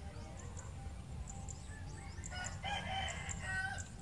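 A rooster crowing once, starting about two and a half seconds in and lasting about a second and a half.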